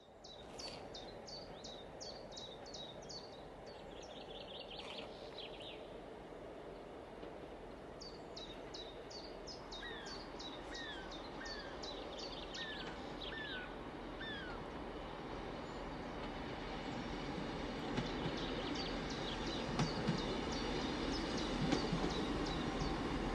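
Small birds singing in repeated short chirps and falling whistled notes, over a low steady background. A Class 158 diesel multiple unit approaches, and its engine and wheel noise grows steadily louder through the second half, with a few sharp clicks near the end.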